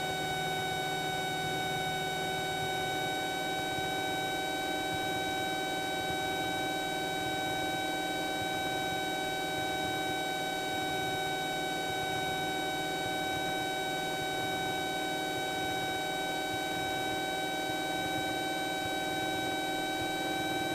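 Cessna 172's engine and propeller droning steadily, heard inside the cockpit, with a few constant high whining tones over a noisy hum that never changes.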